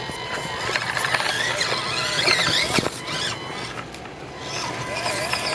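Small electric motors and gearing of 1/24-scale SCX24 RC crawlers whining, the pitch wavering up and down as the throttle is worked, with a sharp click a little under three seconds in.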